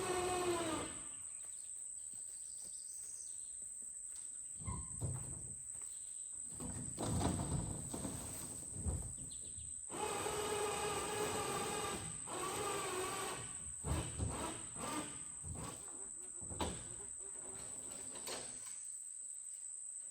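Crickets or other insects make a steady high-pitched drone throughout. Intermittent low thumps and knocks of handling come over it, and a steady mechanical hum with overtones runs for a few seconds in the middle.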